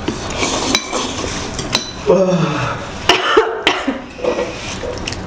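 Chopsticks and forks clicking against bowls as people eat noodles, several separate clinks, with short bursts of voice about two seconds in and again a little after three seconds.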